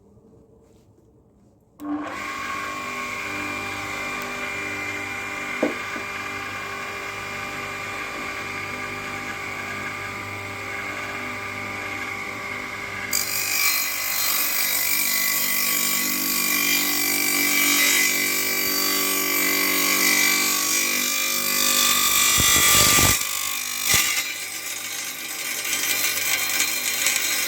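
Compact 800 W table circular saw switched on about two seconds in and running with a steady whine. From about halfway, the blade is cutting wood and the noise grows louder, with a short break shortly before the end before cutting resumes.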